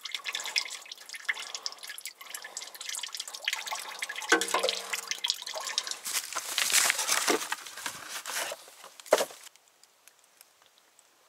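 Warm engine oil draining out of a 1981 GMC C7000's oil pan, dripping and splattering over the sway bar into a catch bucket. It stops about nine seconds in.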